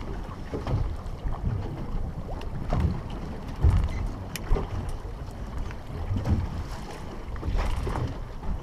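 Wind rumbling on the microphone over a choppy sea, with a few light knocks against the boat.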